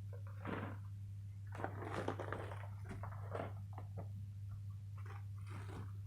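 Persian cat eating, with irregular chewing and crunching sounds and small clicks. A steady low hum runs underneath.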